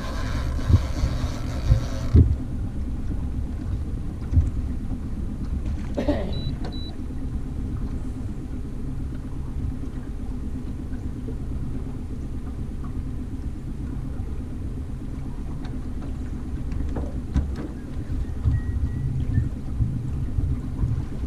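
Boat motor running steadily at low revs, a low rumble, with a short hiss in the first two seconds and a few faint knocks.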